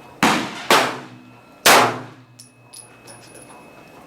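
Three gunshots at a shooting range: the first two about half a second apart, the third about a second later, each loud and sharp with a short trailing echo.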